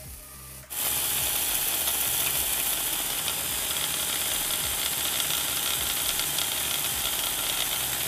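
Homemade belt sander grinding the edge of a folding knife's handle held against the running belt: a steady harsh sanding hiss that starts suddenly about a second in.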